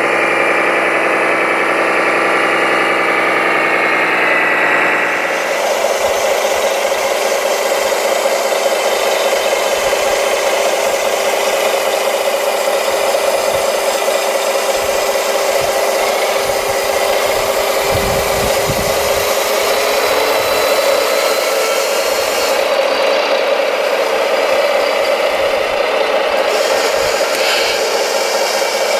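Radio-controlled model tractor's drive whining as it hauls loaded dump trailers over gravel, its pitch drifting slightly. After about five seconds it gives way to a steady mechanical hum with hiss as an RC tipper trailer raises its bed, with a short low rumble midway as the gravel load slides out.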